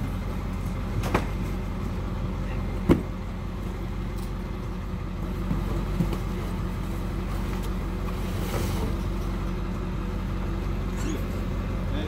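Motor vehicle engine running with a steady low hum, with a few sharp knocks: the loudest about three seconds in, smaller ones about a second in and about six seconds in.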